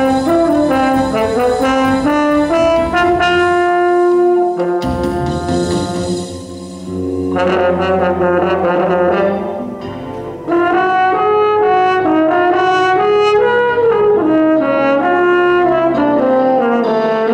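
French horn playing a quick run of changing notes over a pre-recorded electronic tape part, several pitches sounding at once.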